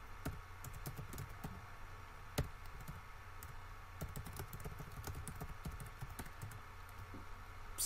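Typing on a computer keyboard: a run of quiet key clicks, with one sharper click about two and a half seconds in.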